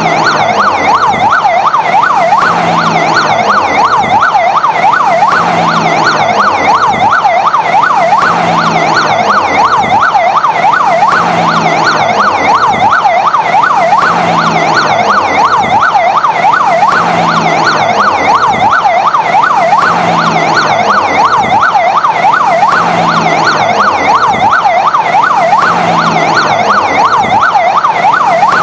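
Fire engine siren sounding continuously in a fast up-and-down wail, its pitch sweeping up and down about three times a second.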